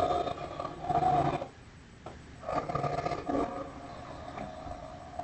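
Tiger roaring twice: one roar ending about a second and a half in, a second starting about a second later and trailing off more quietly.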